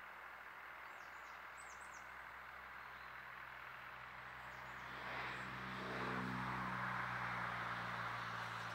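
A distant engine drone that swells about five seconds in and stays up, over a steady outdoor noise bed, with a few faint, high bird chirps in the first two seconds.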